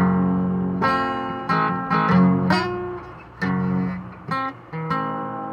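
Fender Starcaster acoustic guitar being played: chords strummed and single notes picked in an unhurried run, each one ringing out and fading before the next.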